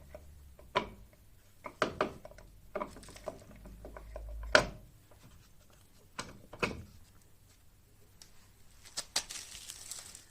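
Scattered knocks and clicks as the rear gear-case cover is fitted onto the scooter's final-drive housing over a new gasket, the loudest knock about four and a half seconds in.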